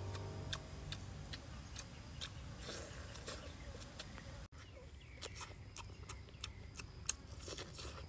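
Close-miked eating of roast duck: irregular wet clicks and lip smacks from chewing, with soft tearing as meat is pulled from the leg.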